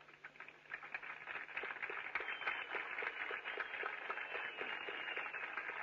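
Crowd applauding: a dense patter of clapping that builds up over the first second and then holds steady.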